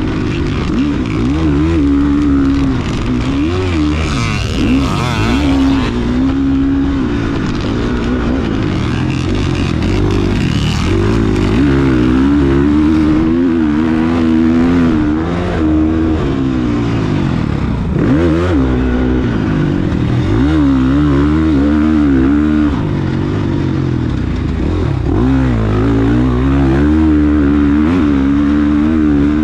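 KTM motocross bike engine ridden hard and heard close up from the bike itself, its pitch climbing and dropping every second or two as the throttle opens and shuts and the gears change.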